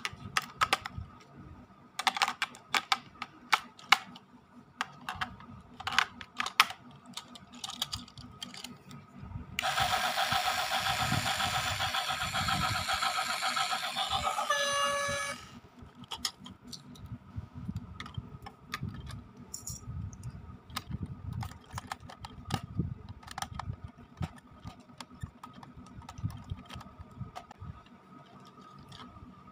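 Plastic clicks and knocks as AA batteries and parts are handled on a battery-powered toy DF4B diesel locomotive. About ten seconds in, the toy's small speaker plays a loud locomotive sound effect for about six seconds, ending in a few short stepped tones.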